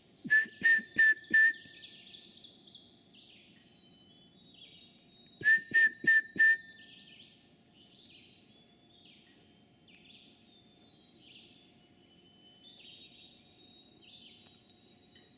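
Whistle blown as a call: two series of four short, loud, same-pitch blasts, the second about five seconds after the first. Birds chirp and sing faintly in the background.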